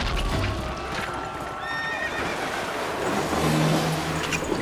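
A horse whinnying, a high quavering call about a second in, over a steady clatter of hooves.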